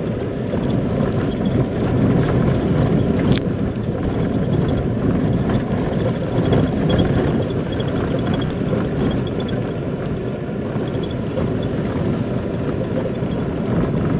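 Steady rumble of a vehicle driving on a dirt road, heard from inside the cabin: tyre and road noise mixed with the engine, with small rattles and one sharp click about three seconds in.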